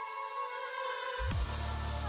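Electronic background music: the bass and beat drop out, leaving sustained tones, then come back in a little over a second in.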